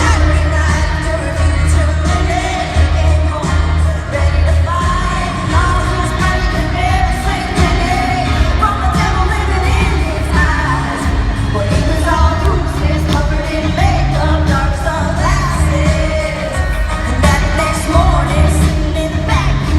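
Live concert performance of a female lead singer with a full band playing a country-pop song, the voice carrying the melody over heavy, pulsing bass.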